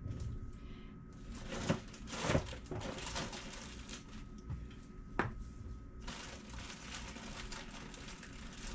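Supplies being handled on a kitchen counter: faint rustling with a few light knocks, the sharpest about five seconds in, as a small plastic mica jar is set down on the counter.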